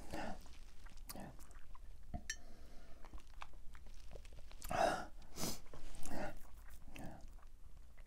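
A person chewing tortilla chips with her mouth closed: soft crunches and small clicks, with a few louder mouth sounds about five to six seconds in.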